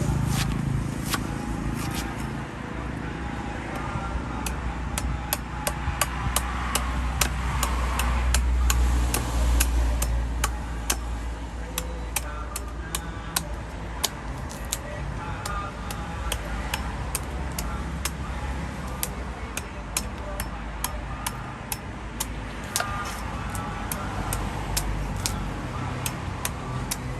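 Heavy knife chopping into coconuts, a run of sharp knocks at about two a second, unevenly spaced.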